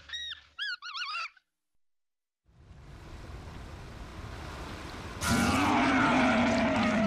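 Warbling electronic tones that stop about a second in. After a moment of silence, a rushing rumble builds and grows louder about five seconds in, with a low steady hum over it.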